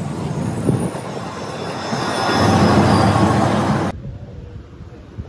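Rumble of a train running on the rails, heard from a moving train; it grows louder, then cuts off suddenly about four seconds in, leaving much quieter background noise.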